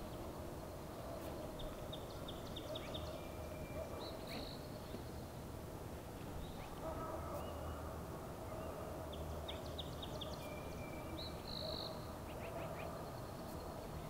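Red-winged blackbird singing twice, about seven seconds apart: each song a few short clipped notes followed by a high buzzy trill. A steady background noise runs underneath.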